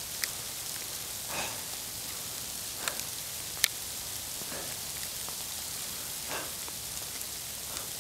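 Sleet and freezing rain falling as a steady hiss with scattered sharp ticks, the loudest tick about three and a half seconds in.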